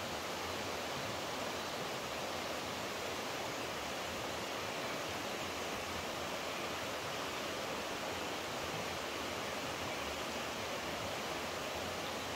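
Steady rush of flowing water, an even hiss without individual splashes or changes.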